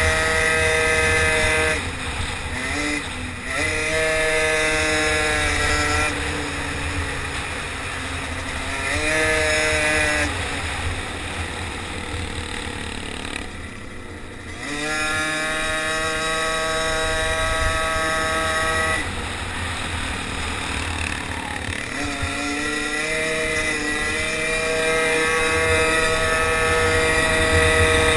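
Small engine of a racing motorized bicycle heard from on board, revving up and easing off again and again through the corners, dropping lowest around halfway before winding back up. Wind rumbles on the microphone underneath.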